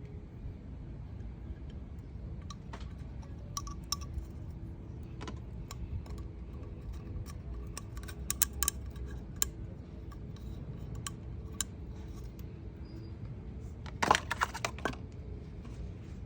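Light metallic clinks and taps of tools and small metal parts being handled, with a quick flurry of clinks about 14 seconds in, over a steady low background rumble.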